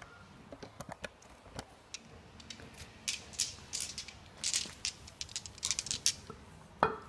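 Handling noises of hands working with greased propeller-shaft parts: scattered light clicks and short rustling scrapes, with a sharper click near the end.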